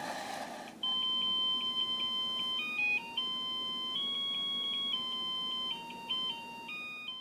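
An electronic melody IC playing a carol in thin, beeping single-line tones, like a musical greeting card. A short burst of noise comes just before the tune starts.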